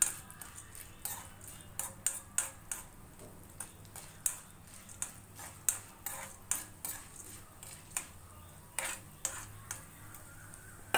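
Metal spoon scraping and clinking against a kadai while stirring lentils and spices as they dry-roast. The clicks and scrapes come irregularly, one or two a second.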